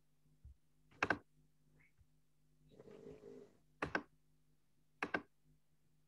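Computer mouse clicked three times, each click a quick double tick of press and release, as the pointer pages through an image carousel.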